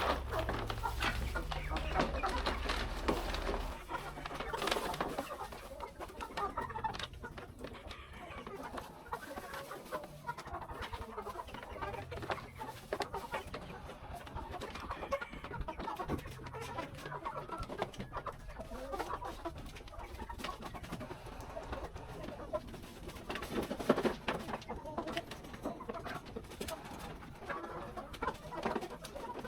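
Chickens clucking, with other farmyard birds calling in the background. A low rumble runs underneath for the first few seconds.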